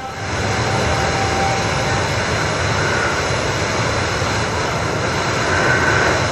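A steady rushing noise with no clear pitch, a little louder near the end.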